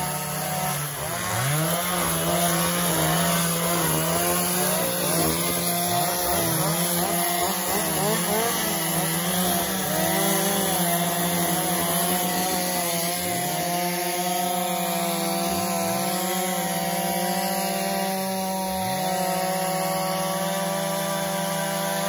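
Several chainsaws running at once, each rising and falling in pitch as it revs and bogs in the cut, while they carve the long grooves into the logs of a hand-cut log house; a bit noisy.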